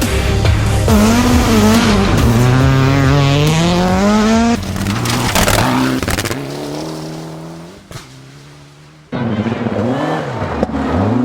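Rally car engines accelerating hard, pitch climbing steeply through the revs, in several spliced clips. One run fades away and the sound cuts back in suddenly with another car's engine rising and falling as it works through corners.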